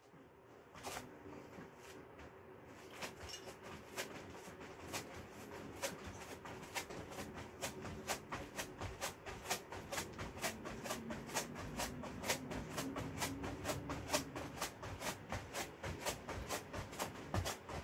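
Sneakers landing on a foam exercise mat during quick jumping footwork: a regular run of light taps, sparse at first, then settling at about three a second.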